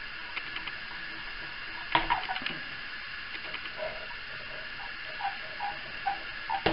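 Small plastic clicks and rattles as the motor wire connectors of a Syma X8C quadcopter are worked loose and pulled out, with a sharper click about two seconds in, over a steady faint hum.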